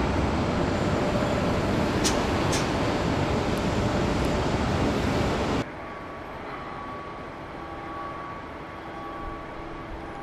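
Steady loud outdoor din of shipyard work and traffic, with two sharp knocks about two seconds in. Just past halfway it cuts off abruptly to a much quieter, distant ambience with a few faint steady tones.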